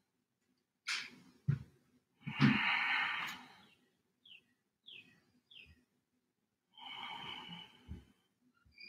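A woman breathing audibly: two short sniffs about a second in, a long exhale about two and a half seconds in and another near seven seconds. Between them come three faint, short, high chirps.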